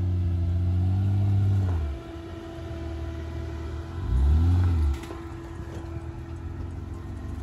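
Honda Ridgeline's V6 engine revving under load in two surges, rising and easing off at the start and again about four seconds in, with a steady higher hum underneath.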